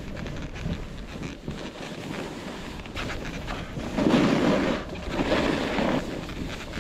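Wind rushing over the microphone while sliding downhill on snow, growing louder from about four seconds in.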